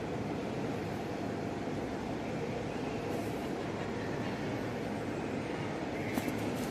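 Steady low rumbling background noise of a large, nearly empty indoor mall atrium, with a couple of faint clicks near the end.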